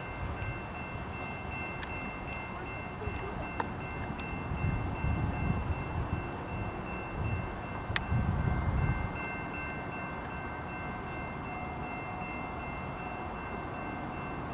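Railway crossing warning bell ringing steadily with several high tones, over a low rumble that swells between about four and nine seconds in.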